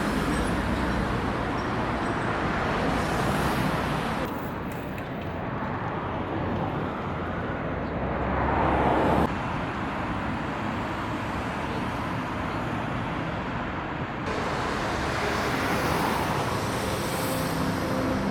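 City street traffic: a steady rush of cars passing on the road, with one vehicle swelling past about halfway through. The sound changes abruptly a few times, as if cut between separate stretches of street.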